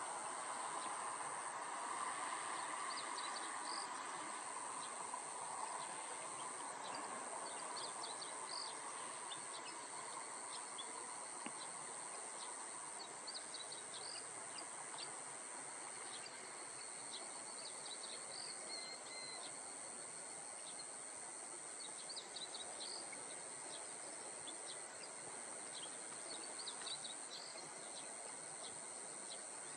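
A steady, high-pitched insect buzz, with short high bird chirps coming in scattered clusters. A broad distant rumble fades away over the first several seconds.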